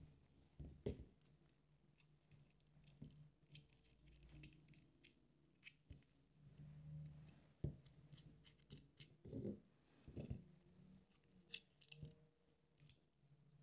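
Faint, scattered clicks and light scrapes of a small screwdriver driving the mounting screws of an FPV drone motor into the frame arm, with the parts being handled. A few clicks stand out a little louder, around a second in and again in the second half.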